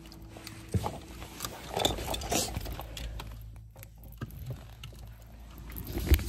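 Close rustling and scattered light clicks from the phone being handled and hair being touched, over a low steady hum inside a car.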